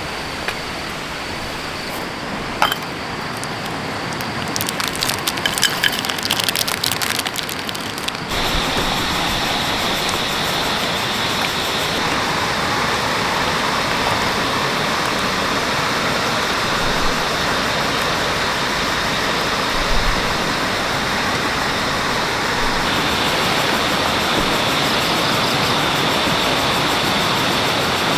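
Steady rush of a forest stream. Scattered crackles and clicks sound over it in the first eight seconds; about eight seconds in it cuts abruptly to a louder, fuller rush of water.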